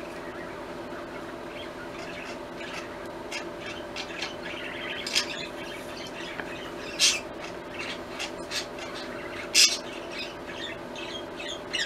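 Rosy-faced (peach-faced) lovebird chirping steadily, with short, loud shrieks about five, seven and nine and a half seconds in. A steady low hum runs underneath.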